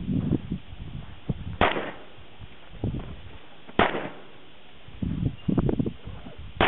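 Three shots from a Glock 19 9mm pistol, about two seconds apart, each a sharp crack with a short echo.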